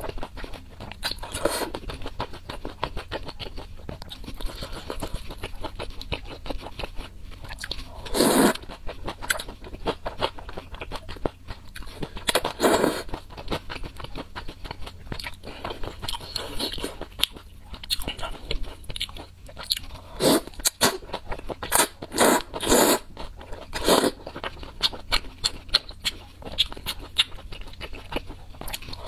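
Close-miked eating of thick noodles in a spicy sauce: wet chewing and mouth clicks throughout, with several louder slurps of noodles at intervals.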